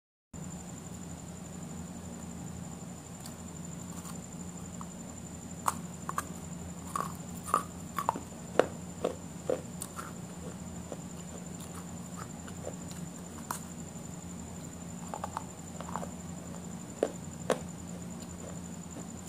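Eating sounds: scattered mouth clicks and smacks, clustered in two bursts, over a steady electrical hum with a faint high whine.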